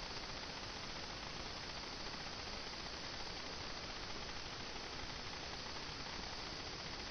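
Steady faint hiss and hum with no distinct events: the recording's background noise.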